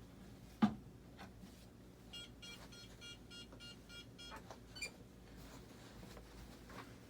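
A sharp knock, then about two seconds later a quick run of short, evenly pitched electronic beeps, roughly four a second, from the RC radio gear as its controller setting is checked.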